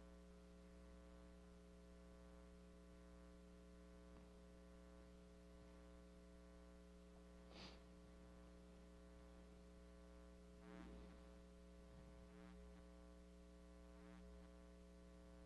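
Near silence: a faint steady electrical hum, with two faint brief sounds in the middle.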